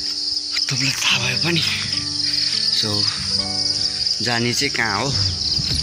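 Chorus of insects shrilling: a steady, high, finely pulsing buzz that keeps on without a break.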